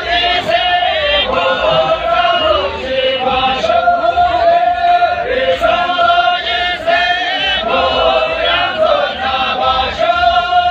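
A group of women singing a Tamang folk song together in unison, unaccompanied, in long wavering phrases.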